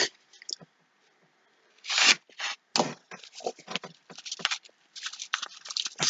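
Kraft paper mailer envelope being torn open: a few short rips about two seconds in, then a quick run of crinkling and tearing.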